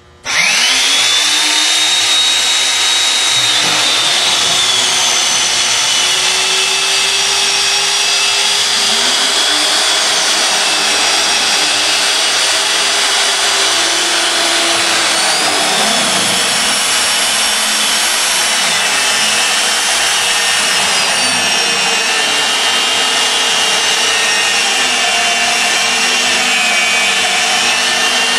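Nitto Atra magnetic base drill starting up about half a second in, its motor whine rising as it spins up. It then runs steadily over a broad hiss, the whine's pitch shifting up and down several times.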